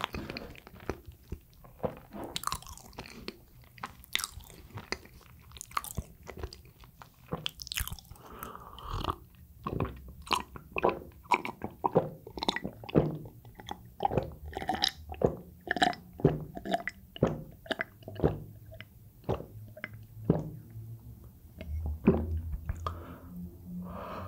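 Close-miked chewing and biting of soft chocolate cream bread: steady wet mouth smacks and clicks, about two a second.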